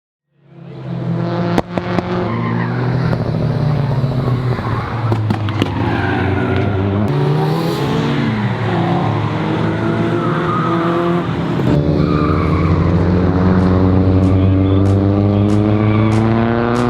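Mitsubishi Lancer Evolution car engines running and revving, rising and falling in pitch, with tyre squeal as the cars are driven hard.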